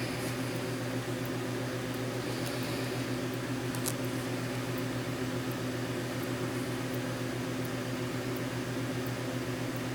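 Steady low electrical hum with a hiss, like a fan or running appliance, unchanging throughout, with one faint light tick about four seconds in.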